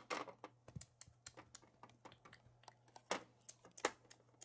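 Small plastic toy figures tapping and clicking on a hard plastic toy table as they are moved by hand: light, irregular clicks, with a couple of sharper ones about three and four seconds in.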